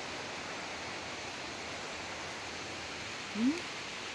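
Steady hiss of outdoor background noise. About three and a half seconds in, a woman's voice makes one short rising sound.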